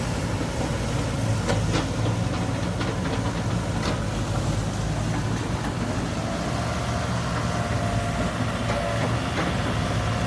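Heavy diesel engine idling steadily, with a few sharp metallic clanks a couple of seconds in.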